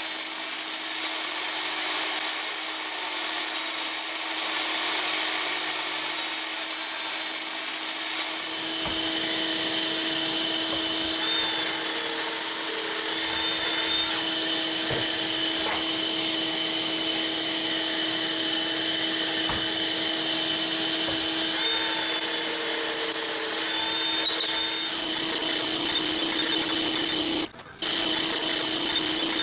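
Woodworking power tool running steadily with a constant motor hum, cutting out briefly near the end and then starting again.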